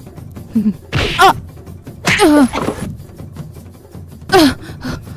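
A person's short wordless cries and groans, three outbursts, the middle one longer and falling in pitch, over background music.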